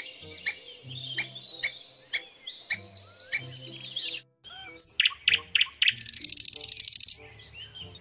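Red squirrel chattering, sharp clicks mixed with high chirps. After a brief cut, a great tit calling: loud repeated notes, then a fast high trill.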